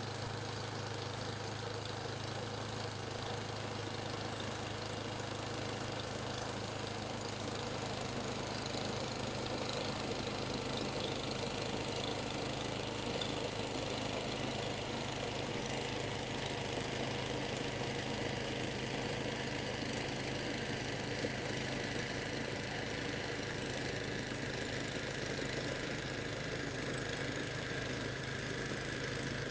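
Engine of a snow-clearing machine running steadily, with an even hiss over its hum.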